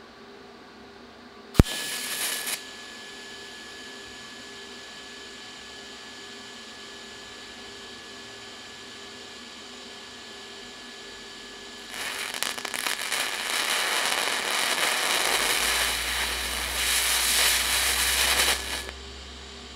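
TIG welding arc on a modern copper-plated zinc penny. A sharp click as the arc strikes about two seconds in, a short burst, then a quiet steady whine. About twelve seconds in comes a loud crackling and sputtering for some seven seconds as the penny fizzles and spatters, fouling the tungsten, before the arc cuts off suddenly.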